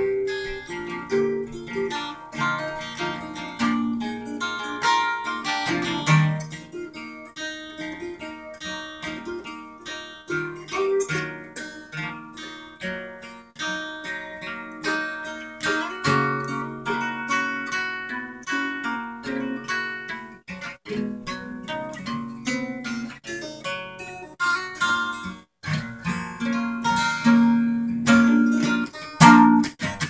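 Two acoustic guitars played together live, a run of picked notes mixed with strums.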